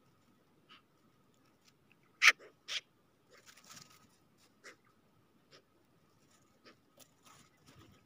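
Eurasian magpies pecking and hopping on snow close to the microphone: scattered sharp taps, the loudest a little past two seconds in, and a short flutter of wings just before four seconds.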